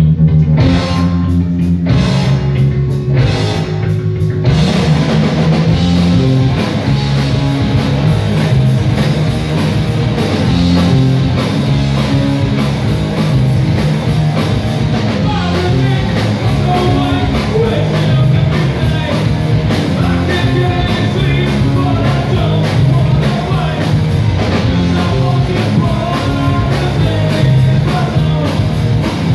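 Loud live rock band playing a song, with electric guitar, bass and drum kit. The full kit with cymbals comes in about four seconds in, after a sparser opening.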